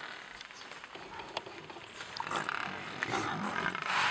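Animal calls from lions and a Cape buffalo herd squaring off, over a noisy background, louder in the second half.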